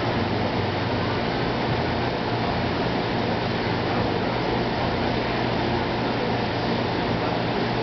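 A saltwater reef aquarium's pumps and circulating water running as a steady rushing hiss with a low hum.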